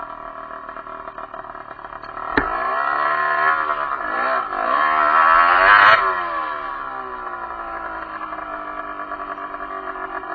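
Derbi enduro motorcycle engine. About two seconds in there is a sharp knock, then the revs climb for several seconds under throttle and fall away as the rider rolls off, settling back to a steady run.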